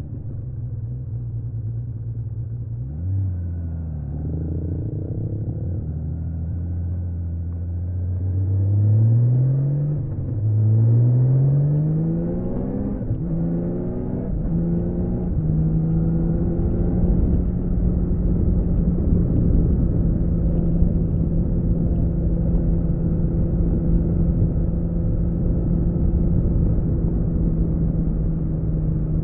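1979 Honda CBX 1000's 1047 cc inline-six engine with stock exhaust, running at a steady low pitch, then revving up through the gears in a series of rising sweeps, two long ones about eight and ten seconds in and shorter ones after, before settling into a steady cruise.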